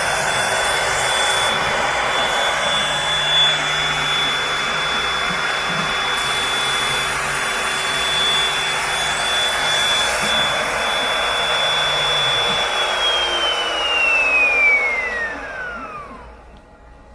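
Knife sharpening machine's motor running steadily with a high whine, then winding down about thirteen seconds in, its pitch falling as it stops, as the sharpening cycle finishes.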